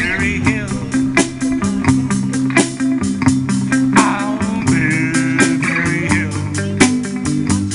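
Live rock and roll band playing an instrumental break: an electric guitar lead with bent notes, over a bass line and a steady drum beat.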